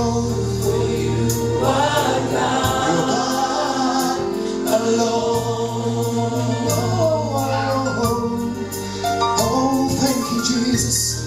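Gospel worship music: a choir singing held, sustained chords over a band with steady bass notes.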